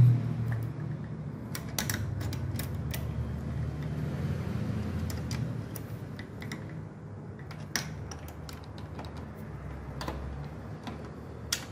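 Irregular small metallic clicks and taps of a wrench on the nuts and bolts as the servo motor's mounting bolts are tightened by hand, over a low hum that fades about halfway through.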